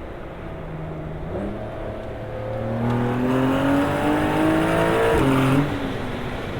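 Porsche 992 Carrera S's twin-turbo flat-six through a Capristo valved sports exhaust, accelerating: the engine note climbs steadily and grows louder, dips briefly at a gear change, then drops off sharply when the throttle is released.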